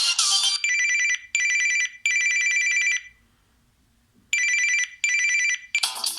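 Samsung Galaxy S2 ringtone imitating a telephone bell: trilling electronic rings at a steady two-note pitch, three in a row, then a pause of about a second, then two more. The tail of another musical ringtone is heard at the start, and a new musical ringtone begins near the end.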